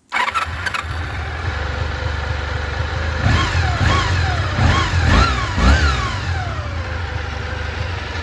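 1989 Honda VFR 400R NC30's V4 engine firing up at once on the starter and settling into idle. A few seconds in it is blipped four times in quick succession, each rev rising and falling, before it drops back to a steady idle.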